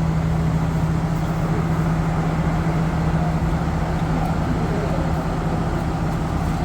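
Train's diesel engine idling, a steady low hum with an even drone.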